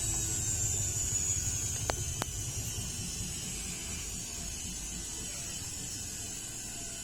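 IFB front-loading washing machine winding down at the end of its cycle: a high motor whine slowly falls in pitch and fades over the first two and a half seconds, over a low rumble from the drum. Two sharp clicks come about two seconds in.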